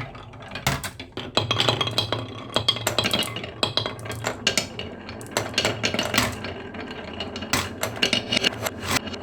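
Marbles rolling down a marble run track with a steady low rumble, clicking and clacking against the track and each other many times at irregular intervals.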